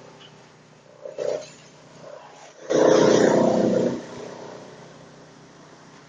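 Industrial wood chipper chewing waste wood scraps off its feed conveyor: a low steady running sound, broken by a short pitched growl about a second in and a louder growl lasting about a second near the middle as wood is bitten off.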